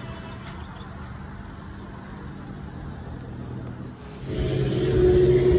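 Road traffic rumble: a motor vehicle's engine comes close about four seconds in and gets much louder, with a steady hum.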